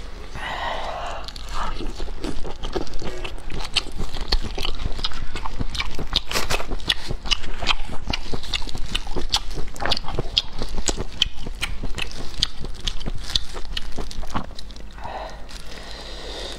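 Close-miked eating sounds of abalone: a dense, irregular run of wet clicks and smacks from chewing and handling the shellfish.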